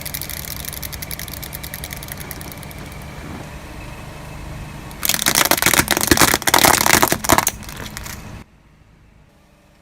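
Bulldozer running with a rapid clattering rattle over its engine, then a louder, harsh crackling stretch about five seconds in; the sound cuts off abruptly about a second later, leaving a low background.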